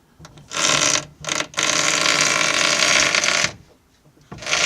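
ZAZ-968M front steering creaking loudly as the steering wheel is turned, in long squeals broken by short pauses, stopping for about a second near the end. The creak comes from dry parts high up in the front steering and suspension, which the owner means to take apart and grease.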